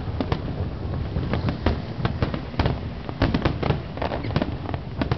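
Aerial firework shells bursting in the closing barrage of a fireworks display: many sharp bangs in quick, uneven succession, several a second at times.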